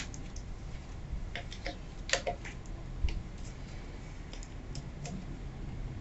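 Scattered small metal clicks and taps of a screwdriver working the terminal screws on an e-bike's lead-acid battery, with a cluster of clicks about two seconds in and a duller knock about a second later.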